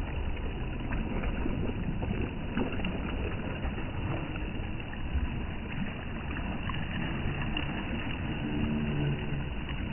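Small sea waves washing against a stone pier and rocks, with a steady low rumble of wind on the microphone.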